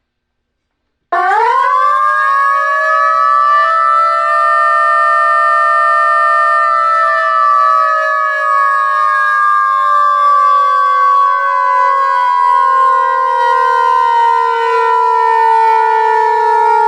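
Whelen electronic siren sounding its simulated mechanical siren tone: about a second in it winds up quickly to its top pitch, holds there, then slowly sinks in pitch like a mechanical siren coasting down.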